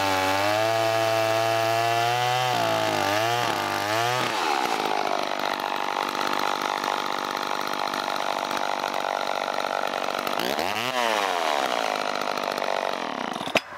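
John Deere 40V two-stroke chainsaw cutting through a log under load, its engine note wavering as the cut finishes about four seconds in. It then runs on out of the wood, with one dip and rise in engine speed, and shuts off abruptly near the end.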